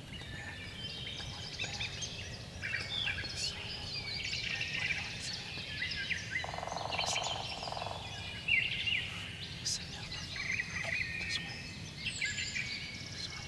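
Songbirds singing and chirping throughout over a low outdoor rumble, with one wild turkey gobble about six and a half seconds in lasting about a second and a half.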